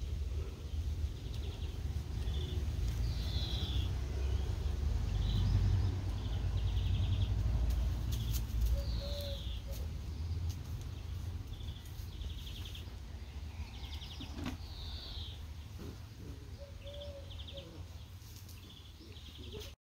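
Outdoor ambience with birds singing: a falling whistled note repeated several times and short buzzy trills, over a low rumble that fades toward the end.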